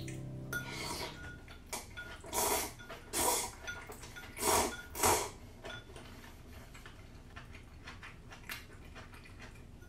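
Slurping and sipping from a ceramic bowl, about five short slurps in the first five seconds, with light bowl and chopstick sounds. After that come quieter mouth and chewing sounds.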